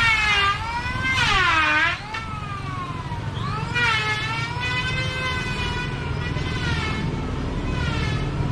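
A person's voice in long, drawn-out notes that slide down and up in pitch, in several phrases, over a steady low traffic rumble.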